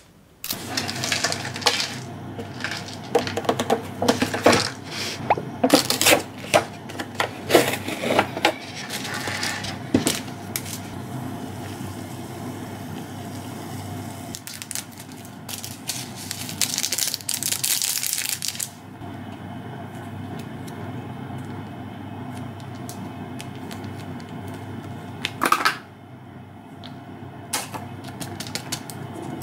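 Making cup noodles: packaging and cup handled with crinkling and clicking, then hot water poured from a kettle into a paper cup of Buldak ramen, heard as a steady splashing hiss for several seconds. Near the end, dried green onions are shaken from a bag into the cup.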